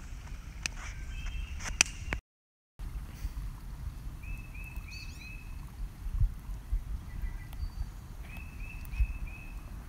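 Wood fire crackling with sharp pops, then after a brief cut a bird singing a short phrase of four quick repeated notes, twice.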